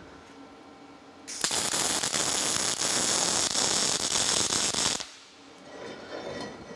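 MIG welder arc crackling and sizzling steadily as a weld bead is run around a steel eye bolt. It starts suddenly about a second in and cuts off abruptly after nearly four seconds.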